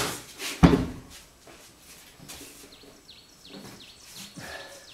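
One hard thump about half a second in as gear is shoved into the truck, followed by faint knocking. Over the last two seconds come short, high, falling chirps repeated several times.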